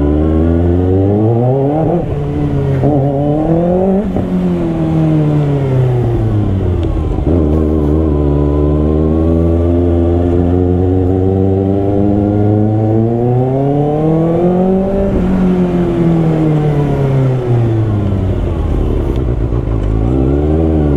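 Kawasaki ZX-6R's inline-four engine through an aftermarket titanium mid-pipe and end can, pulling away: it rises in pitch twice with sharp drops at the upshifts, then swells slowly, eases off, and rises again near the end.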